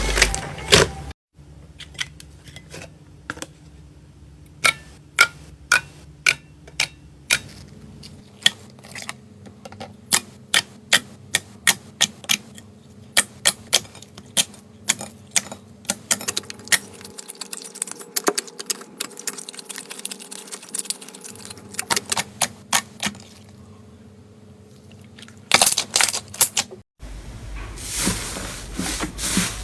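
Slime being pressed and poked by hand, giving a long run of sharp sticky clicks and pops, a few a second. Near the end it changes to louder, denser crackling and rubbing.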